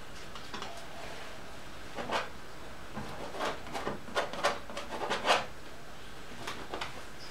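Paintbrush scrubbing oil paint onto a stretched canvas: a run of short, scratchy strokes, one about two seconds in and a quick cluster in the middle, with a few lighter ones near the end.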